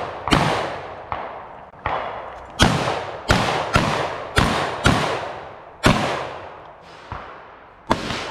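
Pistol shots fired one at a time in a 3-gun match stage, about ten in all, roughly half a second to a second apart, each with a long trailing echo.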